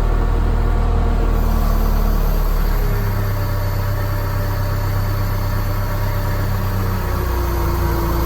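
An engine idling: a steady low drone that shifts slightly in pitch about three seconds in and again near the end.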